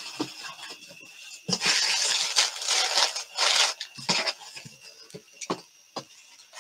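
Rustling and crinkling as things are handled and rummaged through, with scattered small knocks and clicks. The rustling is loudest for about two seconds, starting about one and a half seconds in.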